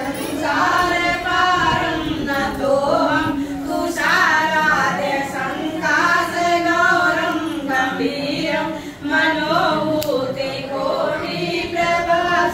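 A group of voices, mostly women's, singing a song together in long phrases.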